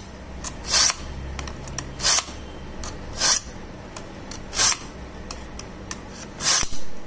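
A kitchen knife blade drawn through the slots of a countertop pull-through knife sharpener: five short scraping strokes, roughly one every second and a half, with light clicks between them.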